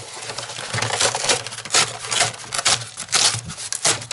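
Cardboard box flaps being handled close to the microphone: an irregular run of crackles, scrapes and rustles of flexing cardboard.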